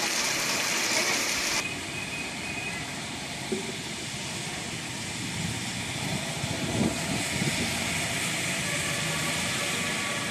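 Heavy rain falling as a steady hiss, with vehicles passing on the wet road. The hiss is brighter and louder for the first second and a half, then settles to a softer rush.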